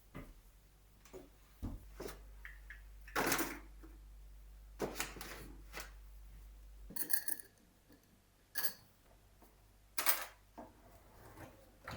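A series of separate knocks and clicks of things being handled, two of them ringing briefly, over a low hum that stops about seven seconds in.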